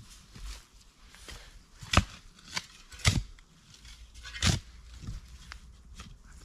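Shovel digging into soil: a series of sharp strikes and scrapes as the blade is driven in and earth is lifted, the loudest about two seconds in, with three more within the next few seconds.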